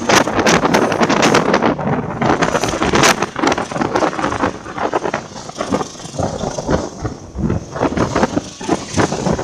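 Passenger train coach running along the track, heard from its open vestibule: a steady rush of running noise and wind, broken by frequent irregular clacks and rattles from the wheels and the carriage.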